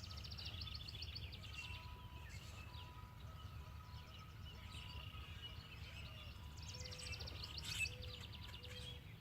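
Songbird singing: a fast trill of rapid high notes, each about a second long, once at the start and again near the end, over a faint steady low rumble of outdoor background noise.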